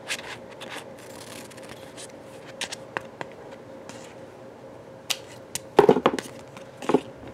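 Scissors snipping a small strip from a paper sticker sheet: a series of short, sharp snips and paper handling, with a couple of louder knocks near the end.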